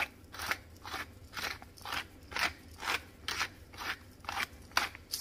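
Hand-twisted pepper mill grinding black peppercorns, a dry crunch at each twist, about two a second and very even.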